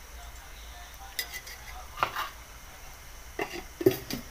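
Metal ladle clinking and scraping against a metal kadhai (wok) as a ladleful of oil is spread in it: a few separate sharp clinks, the loudest near the end.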